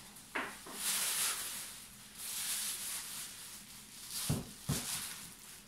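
Cardboard and plastic wrapping rustling and scraping as a wrapped refractor telescope is pulled out of its box. Two soft thumps about four seconds in as the wrapped telescope is set down on a table.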